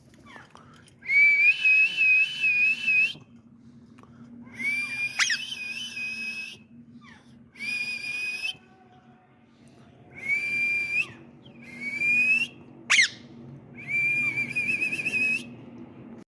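Ringneck parrot whistling a series of about six pitched whistles, some wavering and some rising in pitch, with a couple of short, sharp sweeping squeaks among them.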